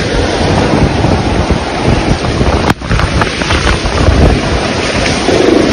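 Flash floodwater rushing and churning in a loud, steady torrent, with wind buffeting the microphone. The sound breaks off briefly about three seconds in and picks up again.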